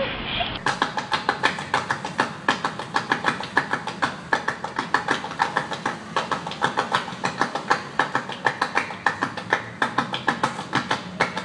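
A group of performers clapping their hands in a fast, even, interlocking rhythm, about six sharp claps a second.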